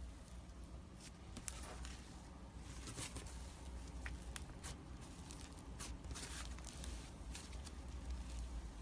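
Slime being squished and poked by hand, making irregular small sticky pops and crackles, with a steady low hum underneath.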